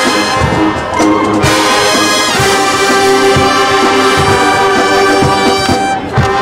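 Marching band playing a pop arrangement: brass chords over a drum beat, with a loud sustained brass chord coming in about two and a half seconds in.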